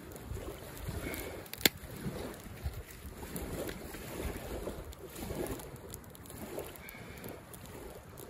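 Small wood fire burning in a folding metal firebox stove, with gusty wind noise on the microphone and one sharp crack about a second and a half in.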